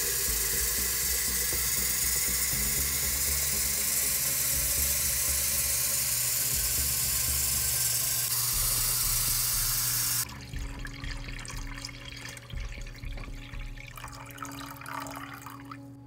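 Kitchen faucet running, its stream splashing into a glass coffee carafe as it fills. The flow cuts off suddenly about ten seconds in, leaving only faint handling sounds.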